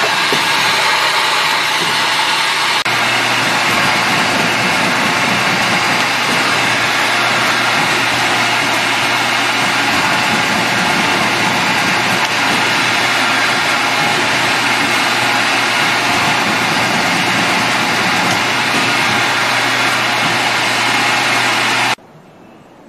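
Automatic pouch filling and sealing machine running: a loud, steady mechanical noise with a constant low hum. It cuts off abruptly near the end.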